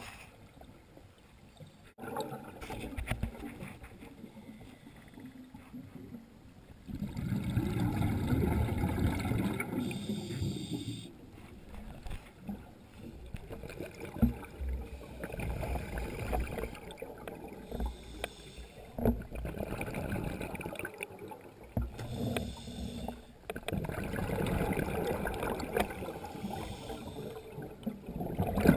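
Scuba regulator breathing heard underwater: bubbling, rumbling bursts of exhaled air come in bouts a few seconds apart, with short hisses between them.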